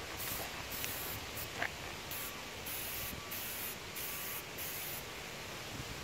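Aerosol spray-paint can hissing in a series of short bursts, stopping about five seconds in.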